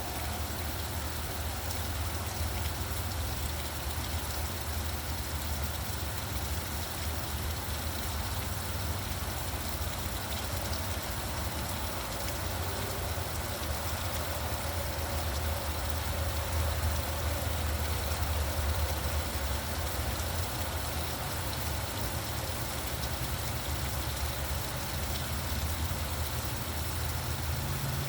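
Steady rain falling, with a continuous low rumble of traffic underneath.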